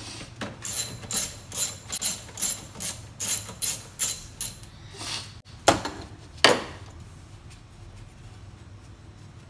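3/8-inch drive ratchet with a long extension and 10 mm socket clicking steadily, about two to three clicks a second, as it loosens a nut. About six seconds in come two louder sharp knocks, and then the clicking stops.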